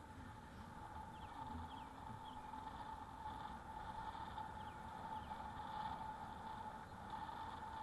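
E-bike motor whining at one steady high pitch over faint road noise, with faint short high chirps now and then.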